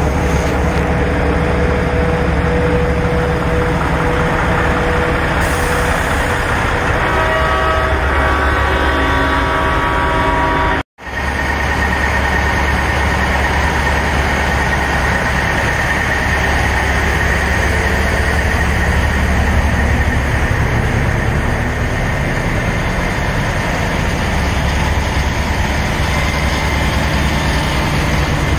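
Semi-truck diesel engines idling with a steady low rumble, with a held tone of several pitches sounding for a few seconds partway through. The sound cuts out for an instant about a third of the way in.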